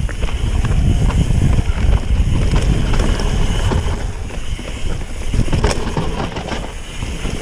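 Mountain bike riding fast down a dirt trail: wind rushing over the microphone and a steady rumble of tyres on the dirt, with many small clicks and knocks as the bike goes over bumps.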